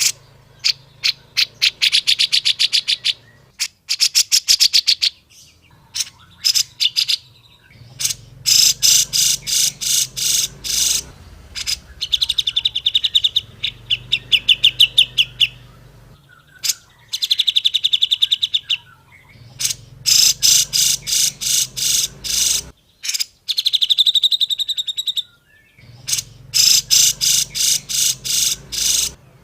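Grey-cheeked bulbul (cucak jenggot) singing: bursts of rapid, evenly repeated sharp chattering notes, each burst lasting a few seconds, with short pauses between them.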